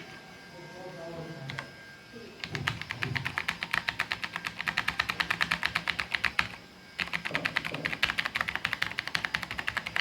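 TVS Gold mechanical keyboard being typed on fast, a rapid stream of key clicks starting about two and a half seconds in, stopping briefly around the middle, then resuming.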